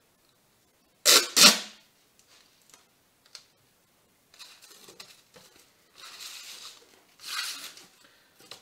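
Packing tape pulled off the roll in one loud rasp about a second in, then the crinkle and scrape of foil-covered cardboard panels being handled.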